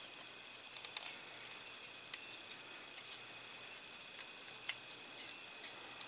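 Faint, scattered small clicks and ticks of a metal ignition switch being pressed and squeezed into a plastic model-car dashboard by hand.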